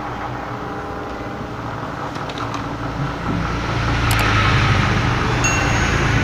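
Road traffic noise with a motor vehicle engine running, growing louder about halfway through.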